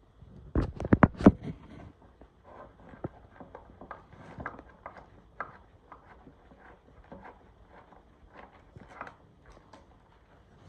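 Irregular knocks and clicks, like hard objects handled and set down: a quick run of loud ones about half a second to a second and a half in, then lighter scattered taps.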